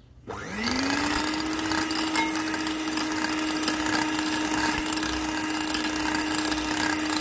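Hand-held Scarlett electric mixer switching on about a third of a second in. The motor rises in pitch over about a second, then runs steadily at low speed as its wire beaters whip egg whites in a bowl.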